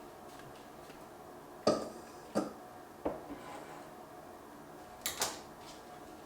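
A few sharp clinks and knocks of hard objects being handled, about a second apart, the first the loudest with a brief ring, and a quick double knock near the end.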